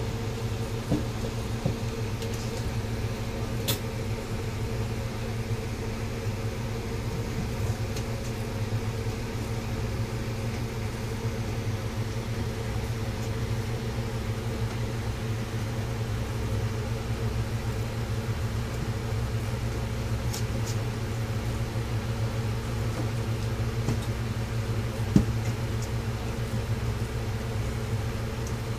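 Steady low machine hum, with a few light clicks and one sharper tap near the end.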